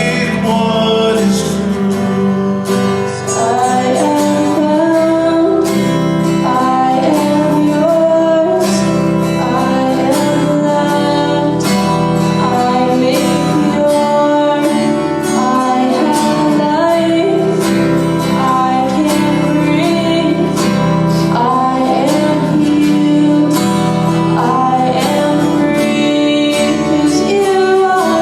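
A worship song: acoustic guitar strumming steady chords under a sung melody.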